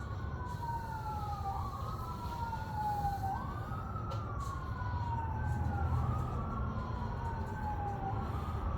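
Emergency vehicle siren wailing, its pitch sliding slowly up and down about every two and a half seconds, with a second wailing tone overlapping out of step. A steady low rumble runs beneath it.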